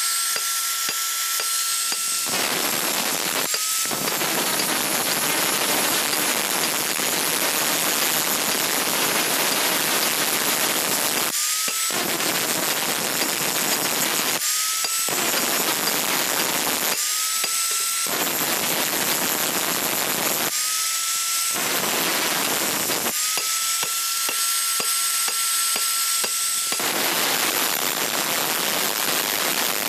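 Angle grinder with an abrasive disc grinding a steel knife blade. A harsh grinding hiss is broken several times by the motor's high whine, which climbs back to full speed each time the disc comes off the steel.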